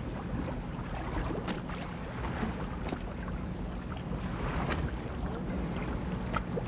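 Steady low drone of a boat's engine, with water sloshing against the hull and wind on the microphone.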